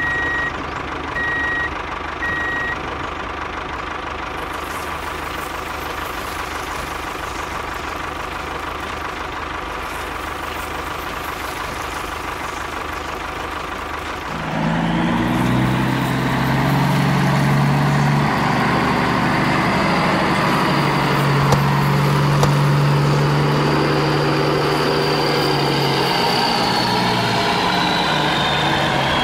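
Tractor engine running steadily, with a few short high beeps in the first couple of seconds. About halfway through a louder engine note swells in and holds, as if working under load, then eases off near the end.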